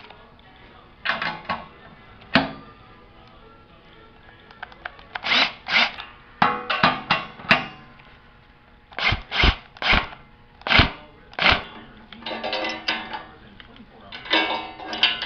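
Cordless drill-driver run in a series of short bursts, spinning nuts down threaded studs to tighten hold-down plates onto a steel table, with a few sharp metal clunks in the middle.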